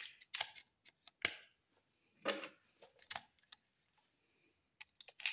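A Maglula UpLULA plastic magazine loader clicking as 9mm cartridges are pressed one by one into a Glock pistol magazine, with brass rounds clinking. It is a run of sharp, uneven clicks about a second apart, with several close together near the end.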